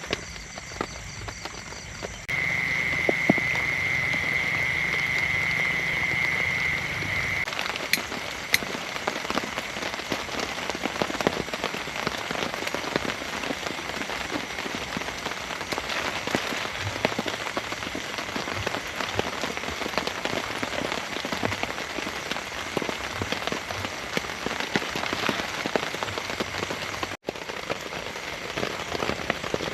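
Heavy rain pattering densely on a surface, an even stream of small drops. For about five seconds starting two seconds in, a steady high-pitched tone with a low hum underneath sounds over the rain and then stops.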